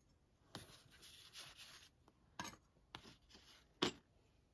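Faint handling noises on a workbench: a soft rubbing shuffle, then three light clicks of parts or tools being set down, the last the loudest.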